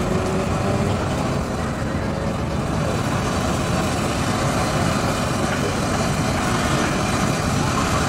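Electric commuter train approaching slowly on a curve: a steady rumble of its running gear and wheels on the rails, slowly growing louder.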